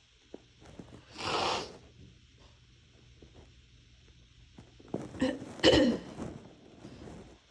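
Half-stifled, wet sneezing from a head cold: a short breathy burst about a second in, then a fuller sneeze a little past the five-second mark, its loudest part a sharp burst. Bed sheets rustle against the phone with each sneeze.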